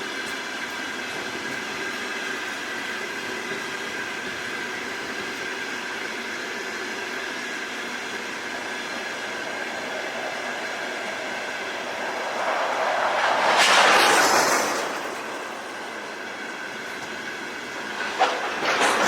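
Empty freight wagons rolling past on the rails, wheels clattering over the joints under a faint steady squeal. A louder rush of noise swells and fades about two-thirds of the way through, and a few sharp clacks come near the end.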